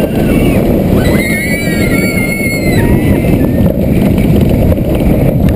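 Steel roller coaster train running fast along its track, with heavy wind rumble on the ride-mounted camera. From about a second in, high wavering squeals rise and fall over it for a couple of seconds.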